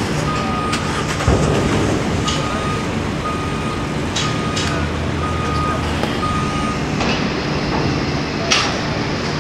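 An electronic warning beeper sounds a steady run of high, even beeps, a little over one a second, and stops about seven seconds in. Underneath it a diesel engine runs steadily, with occasional metallic knocks and clanks; the loudest comes about a second in.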